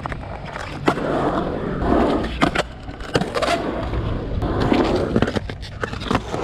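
Skateboard wheels rolling on a concrete bowl with a steady rumble, broken by sharp clacks of the trucks and board, with a quick run of clacks near the end.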